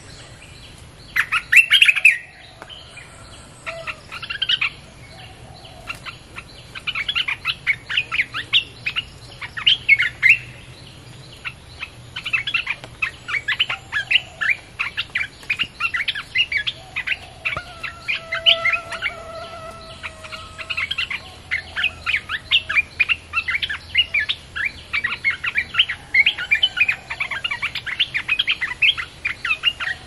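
Bulbul song played back as a lure for wild birds: bouts of rapid, bubbly chattering notes, loud about a second in, then nearly continuous from about seven seconds on.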